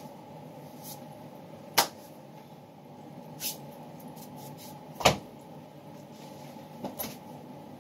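A handful of short, sharp knocks, about five in all, with the loudest about five seconds in. They sit over a steady low hum.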